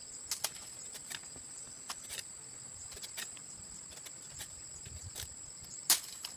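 Short sharp clicks at irregular intervals, the loudest about six seconds in, from a knife cutting and tapping at the trimmed end of a sugar palm's male flower stalk. Behind them is a steady high insect buzz.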